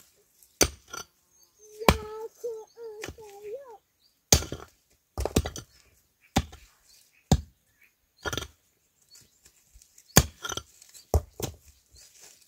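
Sharp blows of a tool chopping into wood, about a dozen at an irregular pace, some coming in quick pairs.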